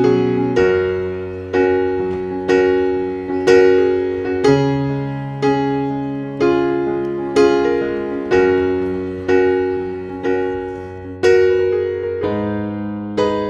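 Piano music: slow chords struck about once a second, each ringing out and fading before the next.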